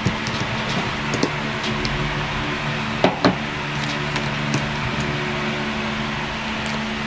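Light plastic clicks and taps from a plastic action-camera mount and thumbscrew being fitted to a helmet's chin, two sharper clicks about three seconds in, over a steady mechanical hum.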